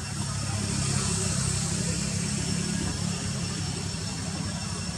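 An engine running steadily with a low hum, under a steady high hiss.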